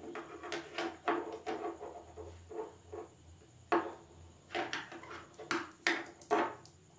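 Irregular light knocks and clicks, about a dozen in a few seconds, from small plastic speaker parts and a circuit board being handled and set against a wooden tabletop.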